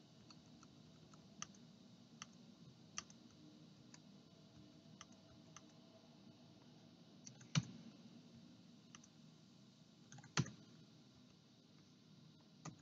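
Faint, scattered computer mouse clicks, about ten of them at irregular intervals, the two loudest about halfway through and about three-quarters through, over a faint room hiss.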